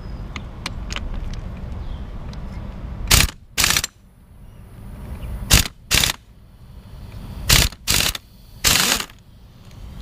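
Impact wrench driving on the clutch-centre nut of a Honda EX5 engine, fired in short bursts: about seven, mostly in pairs, from about three seconds in, the last one a little longer.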